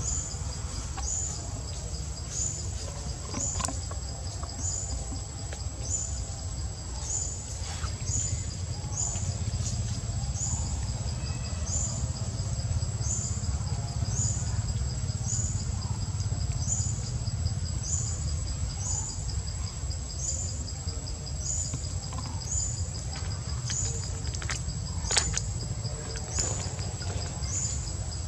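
Outdoor insect chorus: a steady high-pitched whine with a short chirp repeating about once a second, over a steady low rumble of ambient noise. A few sharp clicks stand out, the loudest near the end.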